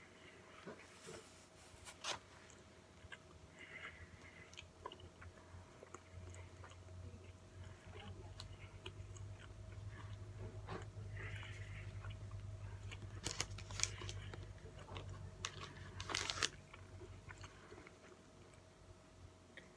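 A person chewing a mouthful of bacon-and-onion-ring burger with the mouth closed: small wet clicks and crunches, with louder crunches about 13 and 16 seconds in.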